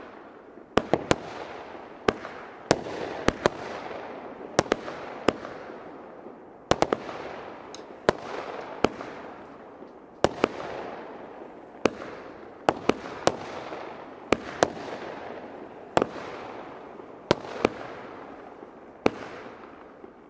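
Röder Feuerwerk 'Crossette Bunt' crossette firework battery firing: a rapid run of sharp reports, one or two a second and some in quick pairs, each trailing off over a second or so.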